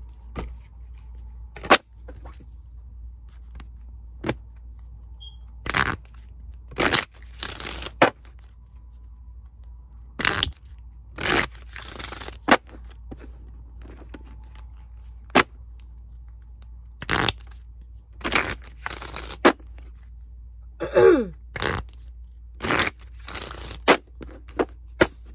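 A deck of tarot cards being shuffled by hand, the cards riffling and snapping in irregular short bursts with brief pauses between.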